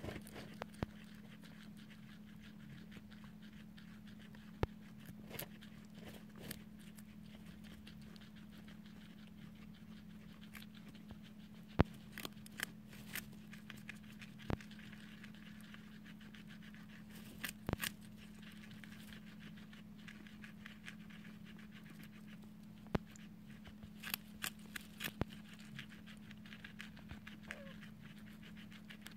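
Guinea pigs chewing and crunching chopped vegetables, with scattered sharp clicks and short rustles in the hay, over a steady low hum.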